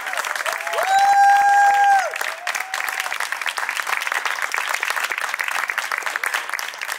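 An audience applauding, a steady dense clapping. About a second in, one voice gives a loud, held cheer lasting about a second, with shorter cheers around it.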